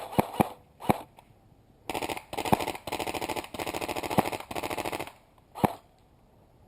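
Airsoft guns firing: a few sharp cracks, then about three seconds of rapid full-auto rattling in several bursts, and one more sharp crack near the end.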